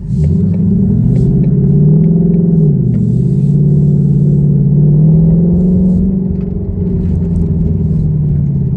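2021 Ford Mustang GT's 5.0-litre V8, running through a newly fitted X-pipe, accelerating hard. The engine note climbs, drops sharply at a gear change about two and a half seconds in, then climbs again and eases off a little near the end.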